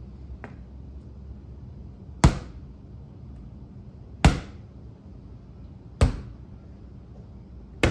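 Four sharp strikes of a practice sword landing on a target, spaced about two seconds apart, each with a brief ring after it: slow, deliberate drill shots.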